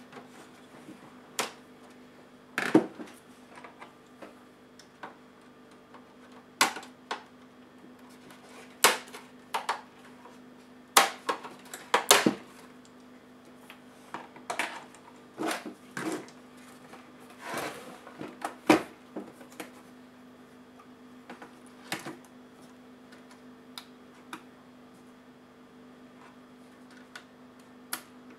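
Plastic clips of a Dell XPS L501X laptop's case clicking and snapping as the palm rest is pried loose and handled: a dozen or so irregular sharp clicks and knocks, over a faint steady hum.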